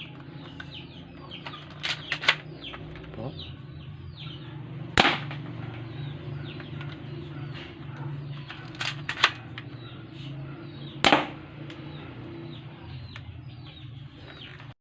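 Spring-powered airsoft pistol firing at a cardboard target: about six sharp snaps, some in close pairs, as the BBs punch through the cardboard. Chicks peep and chickens cluck throughout.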